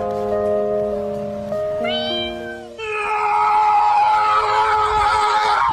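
Background music of held notes changing in steps, with a short rising glide about two seconds in; about three seconds in, a louder held chord with a breathy edge takes over.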